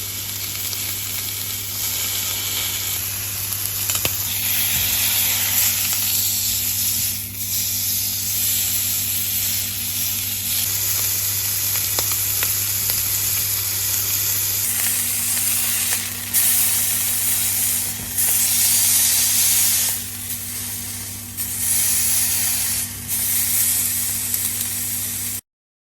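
Steak sizzling hard in a smoking-hot griddle pan: a loud, steady sizzle with a low steady hum underneath. It cuts off suddenly near the end.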